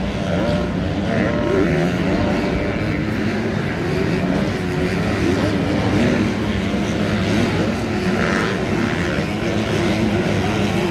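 A pack of supercross dirt bikes racing around the track, their engines droning together, with pitches that keep rising and falling as the riders rev and let off.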